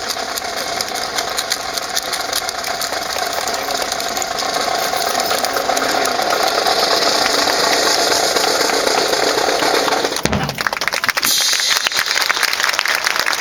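Audience applause, swelling over the first several seconds, with a single low thump about ten seconds in.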